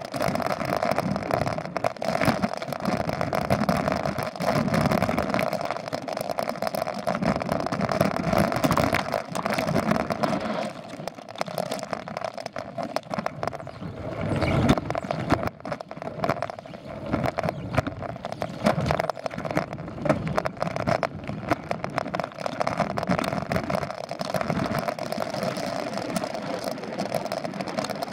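Mountain bike rolling along a dirt trail, heard through a handlebar-mounted camera: steady tyre noise on the dirt with constant rattling and knocks from the bike over bumps.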